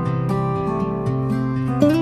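Background music of slow, plucked string notes that ring on, with one note sliding up in pitch near the end.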